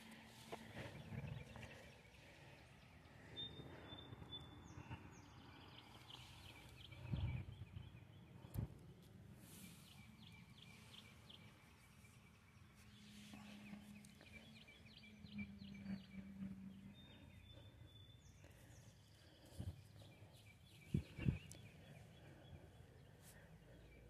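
Near-quiet garden ambience with a few soft thumps from hands working the soil, and faint distant bird calls: two short high whistles and some light chirping.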